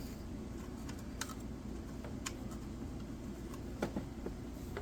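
A few light, scattered clicks of small metal hand tools being picked up and set down while sorting for the right size, over a steady low hum.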